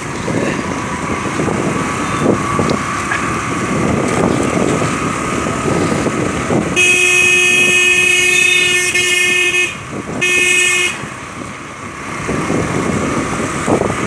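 Motorcycle riding on a wet road, engine and wind noise running steadily. A vehicle horn honks twice: a long blast of about three seconds starting about seven seconds in, then a short toot a moment later.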